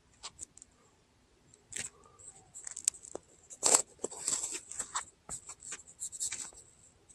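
Handling noise of a small wireless clip-on microphone being fitted with its windscreen and clipped to a jersey collar: irregular rustling, scraping and small clicks against fabric, with short silent gaps between them.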